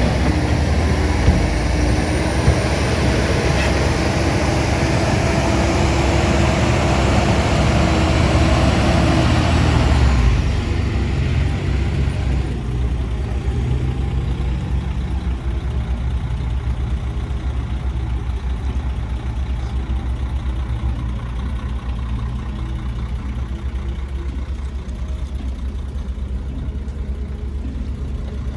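Heavy diesel engines of construction machinery running: loud engine noise for about the first ten seconds, which drops suddenly to a quieter, steady low engine drone.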